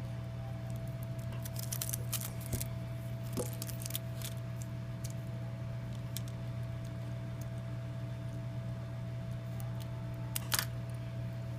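Scattered small clicks and taps from handling a phone and small repair tools, the loudest near the end, over a steady electrical hum.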